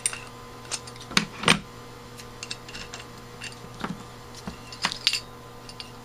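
Scattered clicks and light knocks of metal carburetor parts and hand tools being picked up and set down on a workbench, about half a dozen in all, the loudest about a second and a half in, over a steady low hum.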